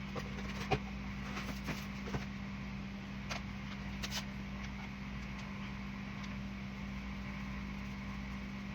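Steady low hum of a fan or kitchen appliance, with a few faint, short taps and rustles from seasoning and handling a slab of raw pork ribs.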